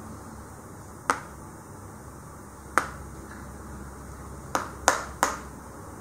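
Sharp clicks of a small hard block striking a phone's screen protector. Five taps: two spaced apart, then three in quick succession near the end, testing the protector.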